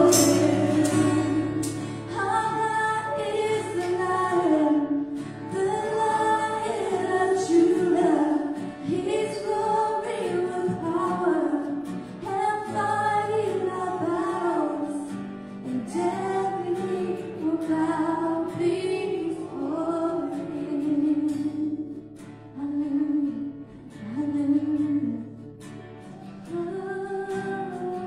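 A worship song sung live by women's voices over acoustic guitar, the singing breaking into shorter, quieter phrases in the last third.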